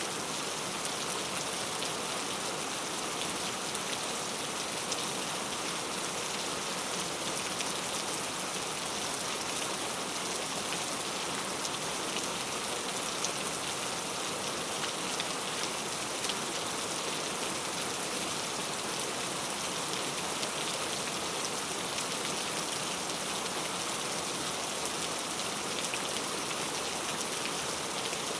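Steady rain falling, an even hiss with many small, sharp drop ticks scattered through it.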